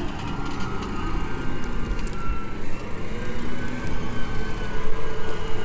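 New Holland T8.435 Blue Power tractor's FPT Cursor 9 six-cylinder diesel working hard as it passes close by, pulling a four-furrow reversible plough. It runs steadily under load with a high whine over the engine note, so loud that it sounds more like an aeroplane.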